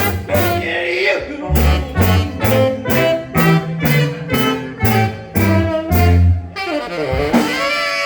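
Live band playing an instrumental passage with a steady drum beat, about two strikes a second, under bass and pitched instruments. The beat stops about six and a half seconds in and a run of notes slides downward.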